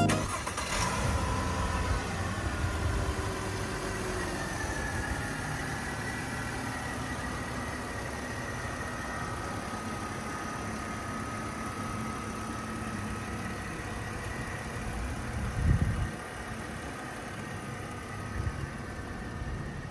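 Mercedes-Benz CLK350's 3.5-litre V6 idling steadily, heard from the open engine bay. There is a brief low thump about three-quarters of the way through.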